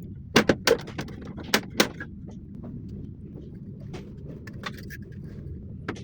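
Sharp clicks and knocks, four strong ones in the first two seconds and fainter ticks after, over a steady low hum.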